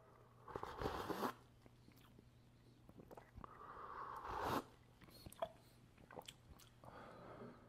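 Faint unidentified handling or rustling noises: two short noisy bursts, about half a second in and again about three and a half seconds in, with scattered small clicks, over a low steady hum.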